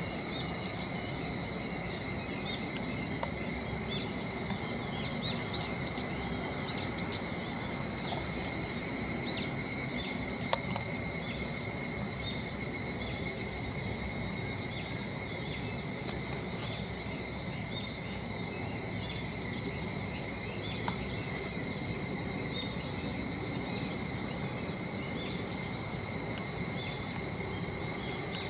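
Chorus of cicadas, several overlapping high-pitched drones running steadily; one swells louder with a pulsing buzz about a third of the way through.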